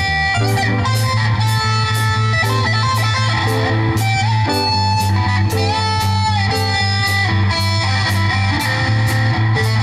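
Live band playing an instrumental break. An electric guitar carries a melodic lead with bent notes over bass guitar and drums, with a steady cymbal beat.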